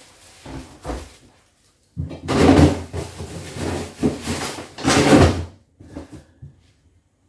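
Groceries being put away in a refrigerator: the plastic lower drawer being slid and packaged food handled. It comes as three loud noisy surges between about two and five and a half seconds in, with a few light knocks before them.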